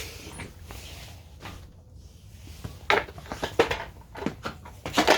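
Handling noises: a run of clunks and rattles from about three seconds in, over a low rumble. No engine is running.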